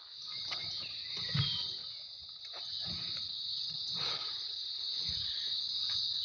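Steady high-pitched chorus of insects, a continuous shrill trill. A few dull low knocks, from the handheld phone being moved, come over it.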